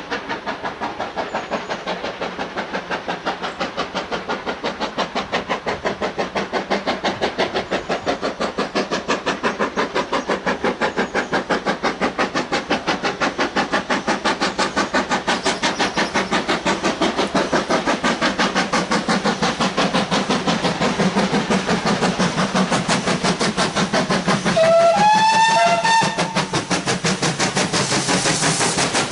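GWR Large Prairie steam tank locomotive No. 4110 working hard up the line towards the listener, its exhaust beating in a rapid, even rhythm that grows louder as it approaches. Near the end its whistle sounds once for just over a second, rising slightly in pitch.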